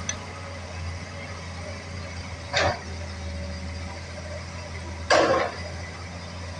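Hitachi excavator's diesel engine running steadily, with two short harsh noises about two and a half and five seconds in, the second louder and longer.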